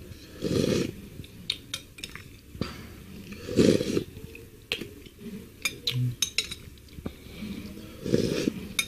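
Spicy seblak broth slurped from a metal spoon three times, about four seconds apart. In between, the spoon clinks and scrapes against the bowl with sharp clicks.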